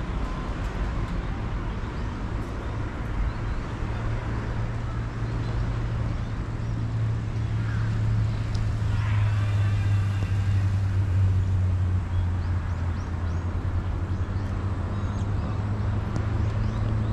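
Road traffic noise: a steady low engine hum that grows a little louder about four seconds in, with a brief higher-pitched sound about nine seconds in.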